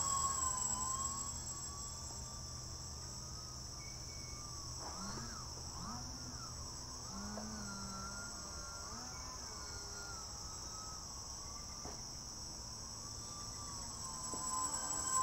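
Steady high-pitched chorus of insects, crickets or cicadas, that does not change, with a fainter whine that rises and falls in pitch several times. The whine is loudest near the start and the end.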